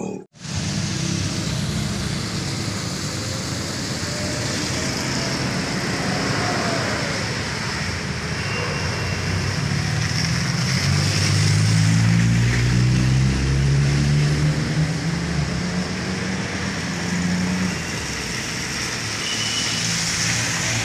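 Cars and a motorcycle driving past on a rain-soaked road, with a steady hiss of rain and wet tyres. A car's engine swells and fades through the middle. The sound drops out for an instant just after the start.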